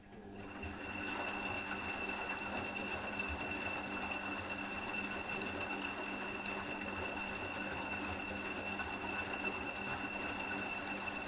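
Electrolux Aqualux EW1006f washing machine running with water inside: a steady motor hum and a thin high whine over water noise. It starts just after the beginning and stops shortly after the end.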